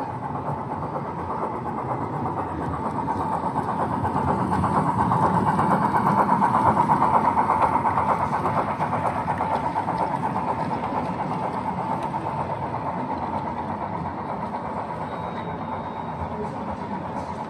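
O gauge model train running on the layout: a steady mechanical hum with a held tone. It grows louder to a peak about six or seven seconds in, as if passing close, then slowly fades.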